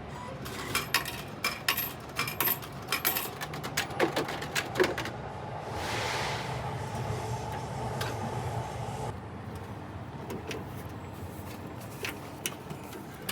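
Vending machine being operated: a quick run of sharp clicks and clinks, then the machine's mechanism whirring steadily for about three and a half seconds, with a few more clicks near the end.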